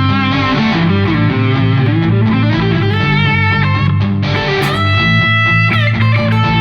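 Electric guitar lead played through overdrive and compression over a looped rhythm guitar part: bent and vibrato notes, with long sustained notes in the second half. The lead tone is shaped with a contour boost filter to sit in the mix.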